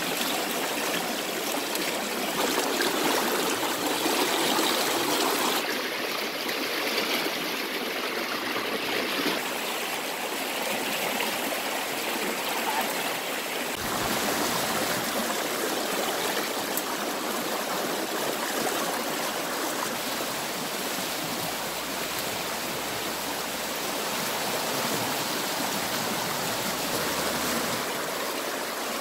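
River water rushing over shallow rapids, a steady, even flow. Its tone shifts abruptly about six and fourteen seconds in.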